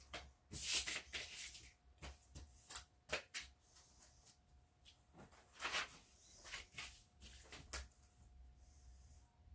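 Scattered rustles and light knocks of a picture being handled and taken down from a wall, the loudest cluster about a second in, over a faint steady hum.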